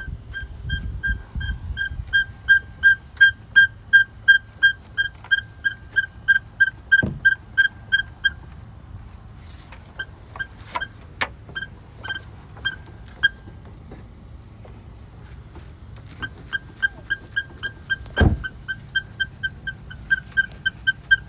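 An unidentified rhythmic squeak inside a 2017 Nissan Maxima SR's cabin: short high-pitched chirps at about three to four a second, over a low steady rumble. The chirps thin out and become irregular for several seconds around the middle, then return steadily. Two single thumps are heard, one about seven seconds in and one about eighteen seconds in.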